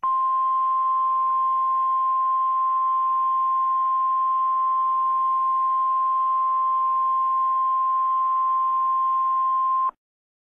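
Emergency Alert System attention tone: one loud, steady electronic tone held for about ten seconds, cutting off abruptly near the end. It signals that an emergency weather message, here a tornado warning, is about to be read.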